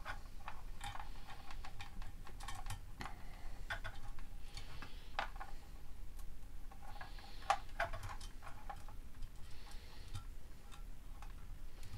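Irregular small clicks and taps, with some light rustling, from hands working a wire onto a solid-state relay's screw terminal inside a plastic project box.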